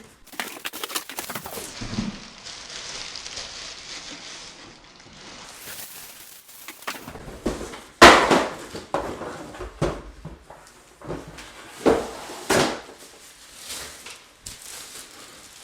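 Unboxing sounds from a new vacuum cleaner's packaging: a stretch of rustling, then a run of knocks and clatters as parts are lifted out and handled, the loudest about eight seconds in.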